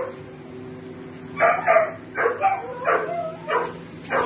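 A dog barking repeatedly: a run of about seven short barks in quick succession, starting about a second and a half in, over a faint steady hum.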